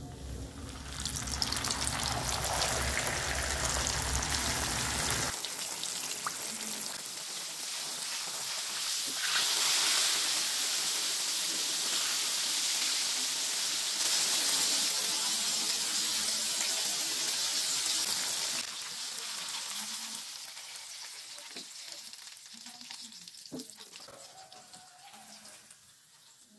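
Flour-coated tilapia frying in hot oil in a wok, a loud sizzle that builds as the fish goes in and fades over the last several seconds. A low rumble runs under it for the first five seconds.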